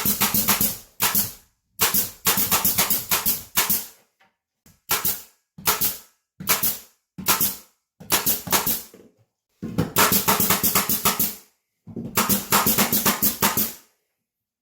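Power screwdriver driving screws into gypsum board in short rattling bursts, about ten in all, each lasting half a second to two seconds with pauses between, as the board is fastened to the framing.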